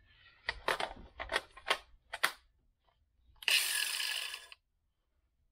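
Clicks and knocks of a Ryobi cordless angle grinder being handled. About three and a half seconds in, the grinder runs for about a second with a new 40-grit disc and cuts off suddenly: a test spin to see whether the disc rubs the guard.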